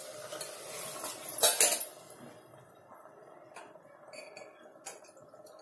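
Metal spoon scraping and clanking against a pressure cooker and a steel bowl during stirring, loudest in a clatter about a second and a half in, then a few light taps.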